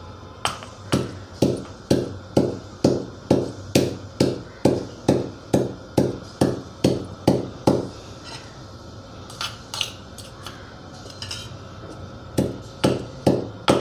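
Stone pestle pounding garlic cloves and a green chilli in a stone mortar, dull strikes about two a second. The pounding pauses for a few seconds and starts again near the end.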